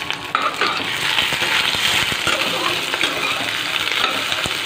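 Sliced onions and whole spices sizzling in hot oil in a metal pot, with scattered clinks of a spoon stirring against the pot. The sizzle gets louder about a third of a second in.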